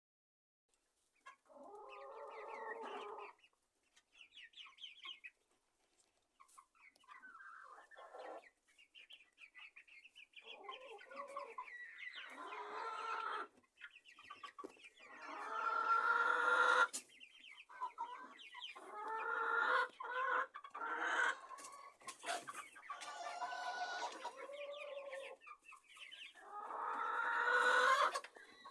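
Young chickens clucking and calling, in a string of pitched calls lasting a second or two each with short pauses between, loudest about halfway and again near the end.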